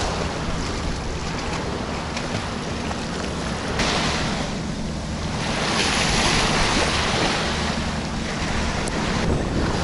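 Sea waves washing and splashing at the shore, the wake of a passing ferry, with wind buffeting the microphone. The wash swells and eases over a low steady hum.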